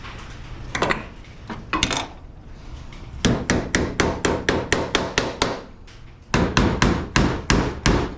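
Hammer blows on the sheet-steel hood of a 1976 Chevy K10, knocking buckled low spots and kinks back into shape. Two single strikes come first, then a fast run of blows at about four a second, a short pause, and another fast run.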